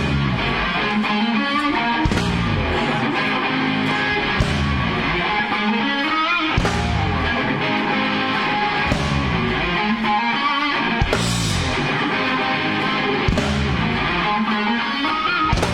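Rock band playing the instrumental intro of a song, led by guitar, with no vocals yet.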